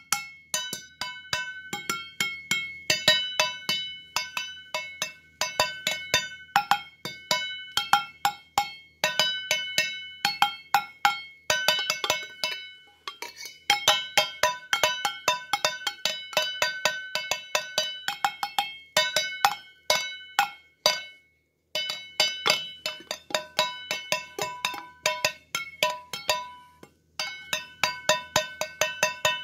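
Metal kitchenware struck and clinked in a quick, uneven rhythm, each strike ringing with a bright bell-like tone, with a few short breaks in the playing.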